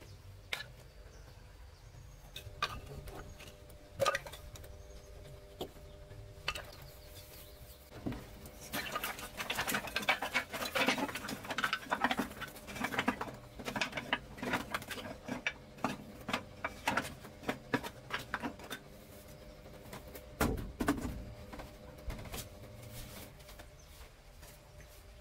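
Wooden offcuts knocking and clattering. At first there are scattered single knocks as they are gathered into a woven bamboo basket, then a dense run of clatter for about ten seconds as they are tipped into a stove, and a single dull thump near the end.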